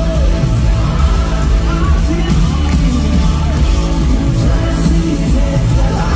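Live worship band playing loudly, with drums, electric guitar and acoustic guitar, and a voice singing over the band.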